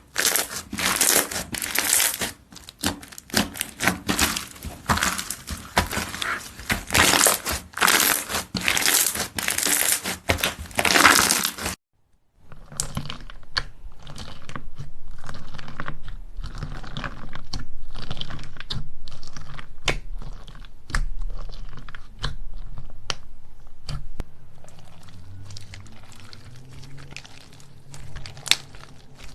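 Slime being squeezed and kneaded by hand, giving rapid crackling and popping clicks. About twelve seconds in the sound cuts briefly, then comes back softer, with sparser pops over a steady low hum.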